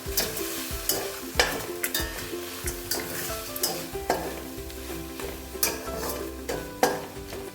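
A ladle stirring a kadai of crab soup, scraping and knocking against the pan in irregular sharp clicks over a sizzling hiss.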